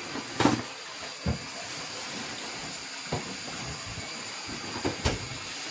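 Thin plastic bags rustling and crinkling in short bursts as groceries are handled, over a steady background hiss.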